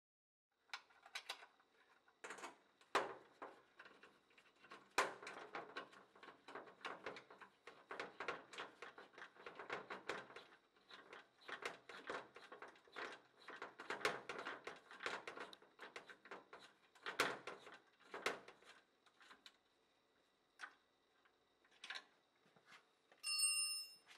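Faint, rapid metallic clicking and light knocks as the bolt fastening a junction box to the stainless steel milk tank is tightened; the clicking thins out about three quarters of the way through. A brief metallic ring near the end.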